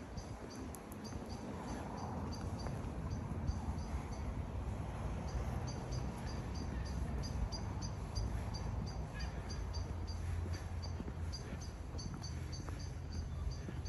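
Outdoor wind and handling rumble on a phone microphone as the person walks, with a faint, evenly repeating high chirp about three times a second.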